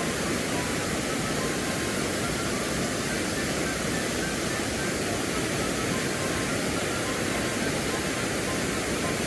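Steady rushing of a mountain stream's water, an even hiss with no breaks.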